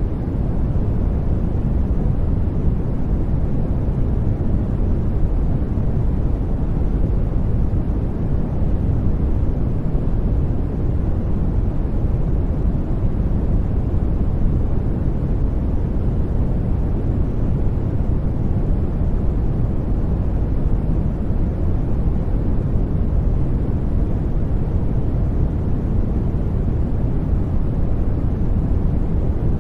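Steady white-noise track for masking, an even, deep rushing with most of its weight in the low end and little hiss up high, never changing.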